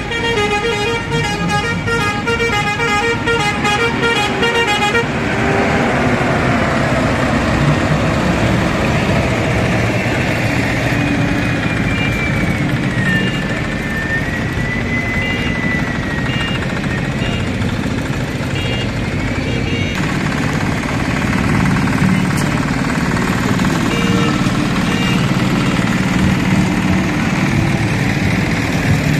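Tractor engines running as the tractors drive past one by one, with a horn tooting rapidly and repeatedly for the first five seconds.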